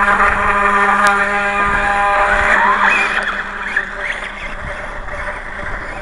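Atomik MM450 RC dirt bike's motor whining at a steady pitch, then rising in pitch about two and a half seconds in as it revs up. After that the sound turns rougher and quieter as the bike moves off over loose dirt.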